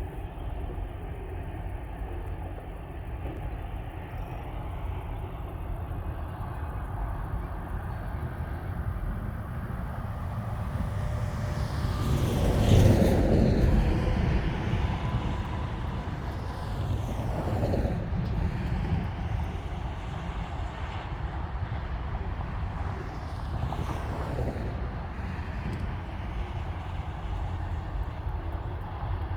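Steady low outdoor rumble. A motor vehicle passes close by about twelve seconds in and is the loudest event. Two fainter passes follow, one a few seconds later and one near the end.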